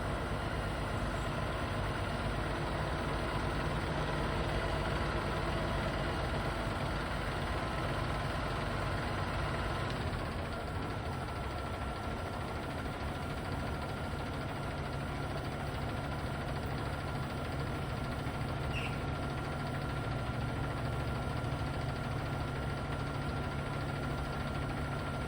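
Boom truck engine running steadily, its tone shifting slightly about ten seconds in.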